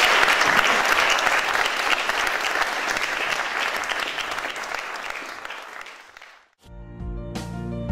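Audience clapping, fading away over about six seconds. Music with sharply struck notes starts near the end.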